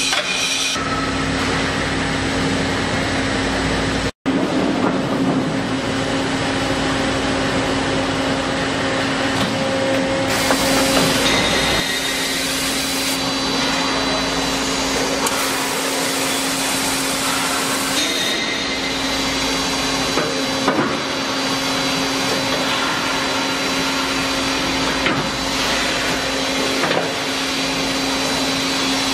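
KOTEC Newrun 7 CNC beam drilling machine running while it works a steel H-beam: a steady motor hum with a constant mid-pitched tone and hiss. The sound cuts out for an instant about four seconds in.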